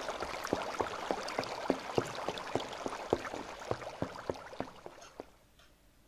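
Water bubbling sound effect for an aquarium: irregular short bubble blips, three or four a second, over a faint water hiss. They die away about five seconds in.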